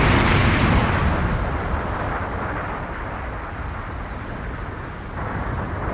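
Rumbling tail of an explosion sound effect, a dense noisy rumble that fades slowly and swells again about five seconds in.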